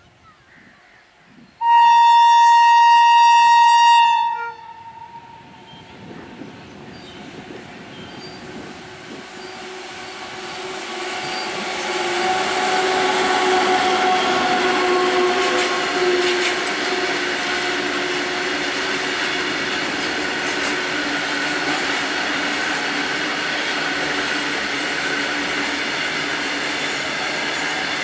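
Electric locomotive's horn sounds one long blast, about two and a half seconds, starting about two seconds in. Then the loaded freight train's noise builds as it draws near, and its wagons roll past with a steady rumble and rail noise.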